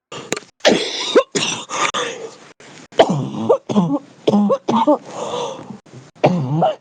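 Heavy smoker's cough: a fit of about a dozen harsh coughs and throat-clearing hacks in quick succession, the later ones with a rough, voiced rasp. It is the deep, chesty cough of a heavy smoker.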